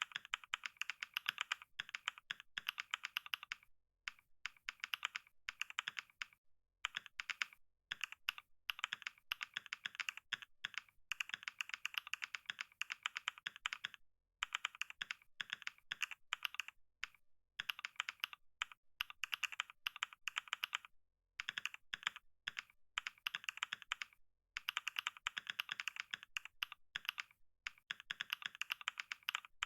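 Computer keyboard being typed on fast and steadily, a rapid run of key clicks broken by brief pauses every few seconds.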